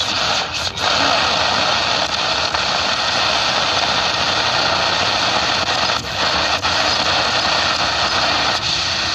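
Shortwave static from a QFX-J22U boombox's speaker: a steady hiss that dips briefly a few times. The radio is tuned to Radio Martí, whose broadcast is buried in the noise.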